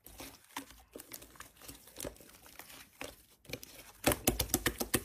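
Fluffy slime squeezed and stretched by hand, giving soft, scattered crackles and small pops, with a denser, louder run of crackles near the end.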